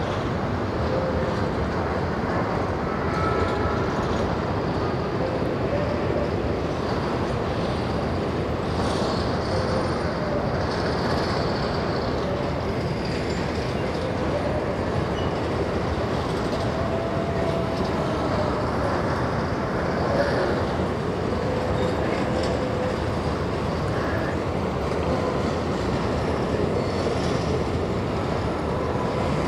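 Empty grain hopper wagons of a freight train rolling past, a steady rumble of steel wheels on rail. Short, faint squeals come through now and then.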